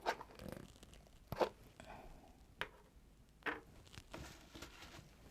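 A few faint, short clicks and rustles of things being handled on a table, roughly a second apart.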